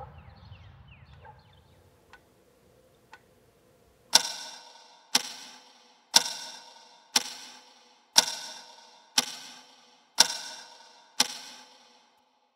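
A clock ticking one tick a second, each tick ringing and dying away. Two faint ticks come in first, then eight loud ones.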